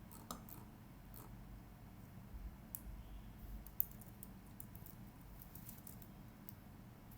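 Faint, irregular clicking of computer keyboard keys and a mouse, a few clicks at a time with short pauses between.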